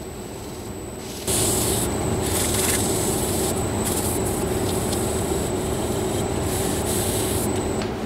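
A cloth rubbed against a turned Afghan pine lid spinning on a wood lathe while it is polished: a steady rubbing hiss sets in about a second in and stops near the end. Under it runs the lathe's steady motor hum with a thin high whine.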